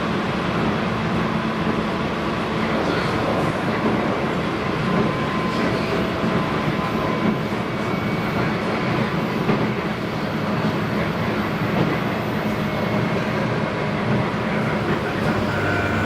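Interior running noise of a JR East 719 series electric multiple unit: a steady rumble of wheels on rail with a low, steady motor hum. This unit's traction motors sound different from the usual 719 series.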